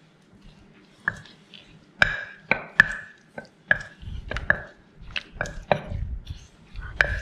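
Wooden pestle knocking in a clay som tam mortar, pounding and mixing the wet dressing of chili, palm sugar, fish sauce, tamarind and lime juice. Irregular knocks, each with a short ring, start about a second in and come closer together later on.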